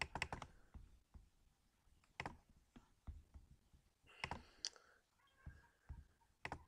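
Faint, irregular clicking of a computer mouse, about ten clicks spread unevenly.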